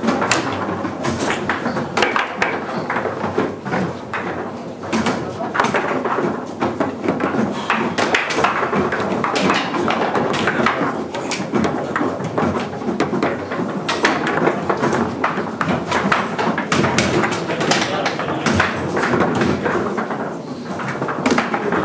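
Foosball table in play: the ball cracking off the player figures and rods knocking against the table, many sharp irregular clacks, over a steady background of people talking in a hall.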